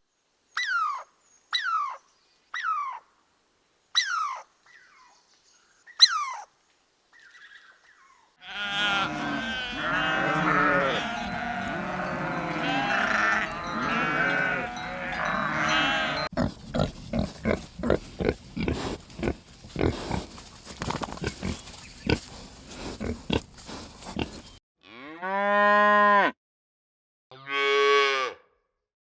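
A run of short animal clips: first about six short whistles that each fall in pitch, then a dense mix of many overlapping calls that turns into rapid clicking, and near the end a cow mooing twice in long, low calls.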